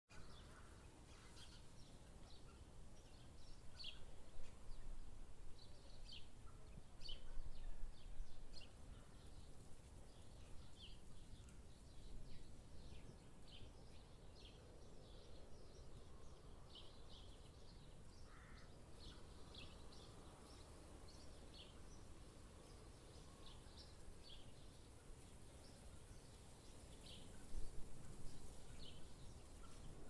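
Forest ambience: many short, high bird chirps and calls scattered throughout over a faint low rumble, which swells briefly a few times.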